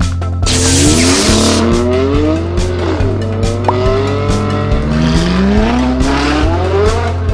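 Race-car engine and tyre-squeal sound effects, the engine pitch sweeping up and down, over background music with a steady bass line. A burst of hiss starts about half a second in and lasts about a second.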